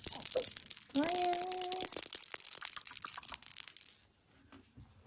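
A rattle shaken rapidly for about four seconds, then stopping. A short held voice-like note sounds about a second in.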